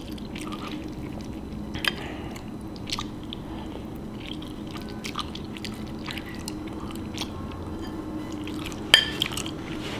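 Close-up chewing of a mouthful of macaroni and cheese, with small wet mouth clicks over a faint steady hum. A sharper click comes about two seconds in, and the loudest, sharpest click near the end.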